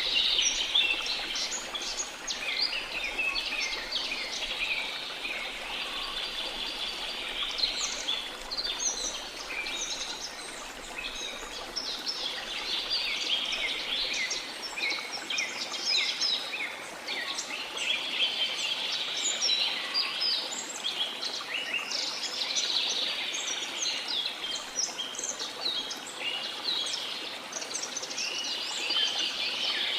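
Many birds chirping and singing over one another in a dense rainforest chorus, over a steady rush of falling water.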